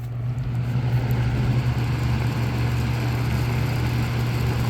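A 1980s Toastmaster 20-inch box fan with a McMillan motor running on high speed. It comes up to speed over the first second or so, then runs steadily with a strong low hum. It is pretty loud, and the cheap, thin-metal cabinet shakes.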